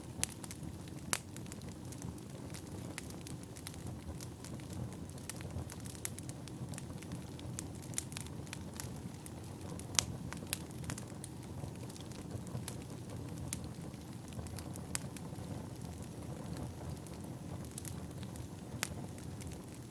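Wood fire burning, with a steady low rumble and frequent irregular crackles and pops from the burning firewood.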